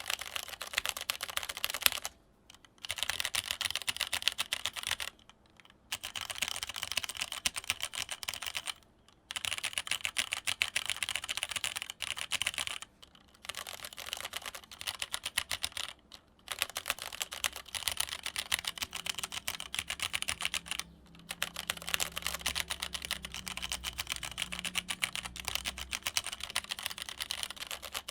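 Fast typing on a Leopold FC660m keyboard with linear Cherry MX Red switches, a rapid clatter of keystrokes in runs of a few seconds broken by brief pauses.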